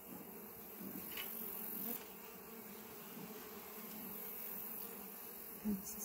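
Honey bees buzzing around an open Langstroth hive during an inspection, a steady hum.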